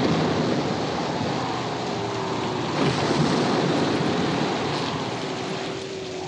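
Film sound effects of heavy surf and wind: a steady roar of breaking waves, with a faint drawn-out tone running through it.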